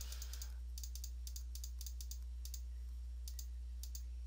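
Computer mouse clicking repeatedly, quick sharp clicks in small irregular bunches, as the mouse steps down a scrolling list. A steady low electrical hum sits under them.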